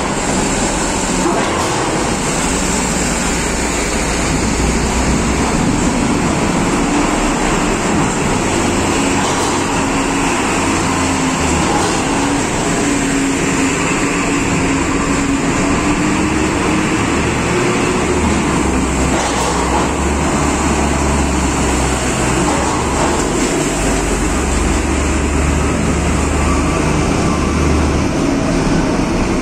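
Diesel trucks and a Scania coach driving up the loading ramp onto a ferry's vehicle deck, their engines running as a steady, loud rumble heard from inside the deck.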